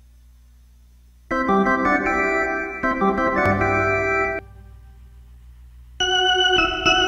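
Yamaha YC-45D combo organ sound playing sustained chords. The first chord comes in about a second in and changes once, then cuts off; more chords begin near the end. A low hum fills the pauses.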